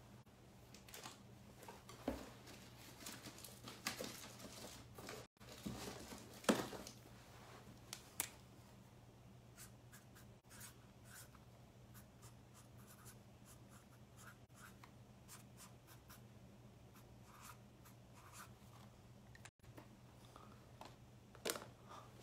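Faint scattered clicks, taps and short scratchy rustles of small objects being handled, busiest in the first several seconds, over a steady low hum.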